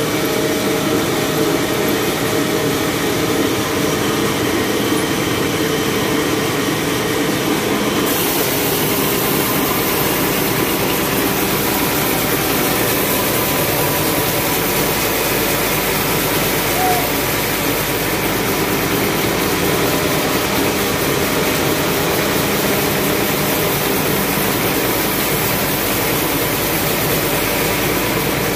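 Band sawmill running with a steady mechanical drone. Its tone shifts slightly about eight seconds in.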